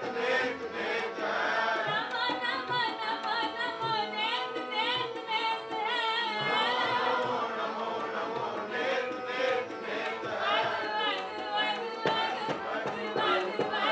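Sikh kirtan: a woman singing a devotional hymn in long, ornamented, wavering lines over the steady held chords of her Yamuna hand harmonium, with tabla drumming throughout. The tabla strokes grow busier in the second half.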